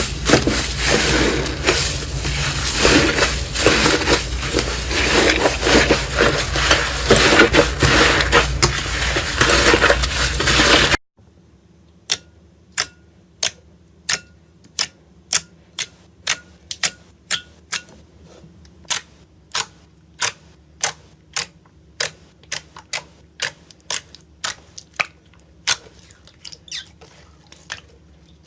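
Crunchy ASMR material being crushed and crackling densely and loudly, which cuts off abruptly about eleven seconds in. Then sharp single clicks follow at a steady pace of about two a second over a quiet background.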